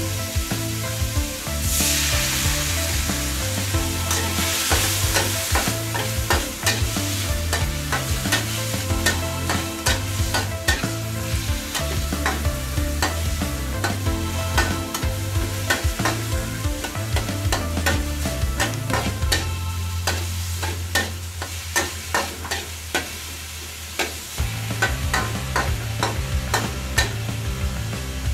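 Metal spatula scraping and clacking against a steel wok in quick, uneven strokes as sliced pork stir-fries, with oil sizzling underneath.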